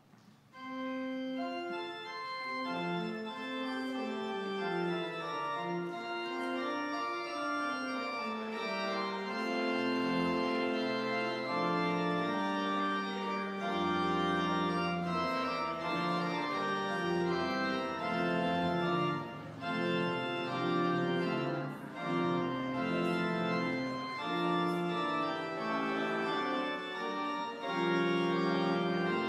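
Church organ playing a slow piece in sustained chords, with a low pedal bass joining about ten seconds in.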